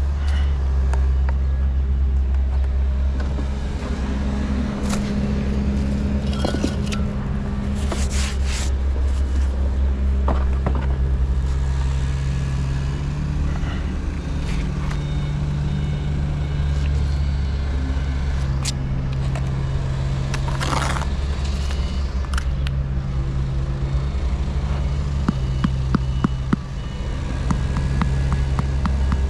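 A motor running with a steady low drone, with scattered clicks and scrapes over it.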